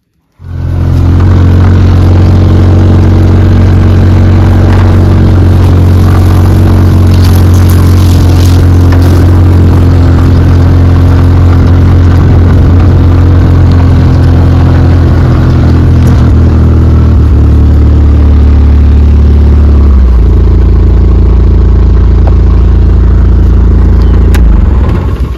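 Side-by-side UTV engine running loud and steady while driving across a field. About twenty seconds in its pitch drops, and it cuts off abruptly near the end.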